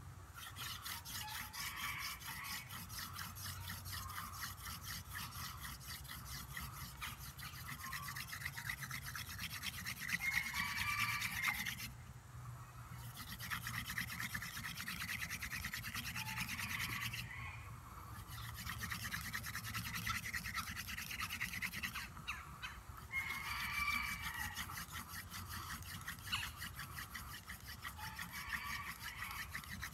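Goldenrod hand-drill spindle twirled back and forth in a cedar hearth board: a fast, continuous wood-on-wood scrubbing of many quick strokes. It breaks off for about a second three times, near the middle and twice more later on, then resumes.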